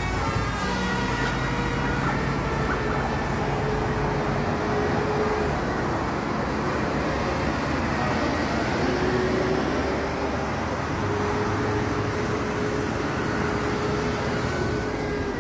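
Bus engine and road traffic running steadily, with one steady low tone that sags and climbs back about halfway through.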